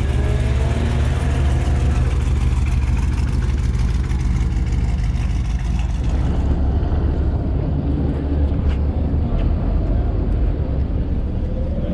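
Low, steady car-engine rumble as a classic sedan drives slowly past; the rumble carries on after a cut to another part of the lot.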